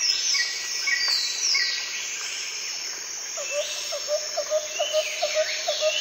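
Outdoor woodland ambience: birds calling, with short chirps and falling whistles, over a steady insect buzz. About halfway in, a rapid run of short, low repeated notes starts, about four a second.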